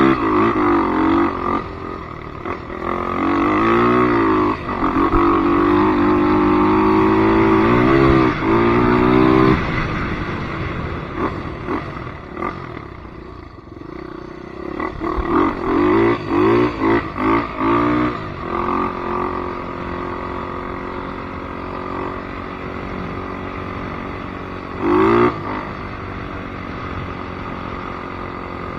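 Polaris Predator 500 ATV's single-cylinder four-stroke engine revving: rising and falling throttle sweeps held high for several seconds, then a run of quick blips. It settles to a steady lower running with one short blip near the end.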